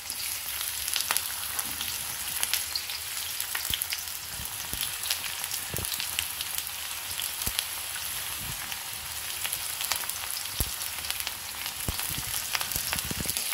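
Sliced onions frying in hot refined oil in a kadhai: a steady sizzle with fine crackles throughout.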